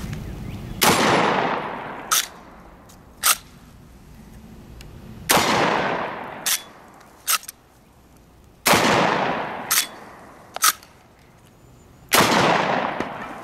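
Four 12-gauge blasts from a Chiappa 1887 Mare's Leg lever-action shotgun firing high-brass birdshot, about three and a half seconds apart, each trailing off in a fading echo. Between shots the lever clacks open and shut as it is worked to chamber the next shell.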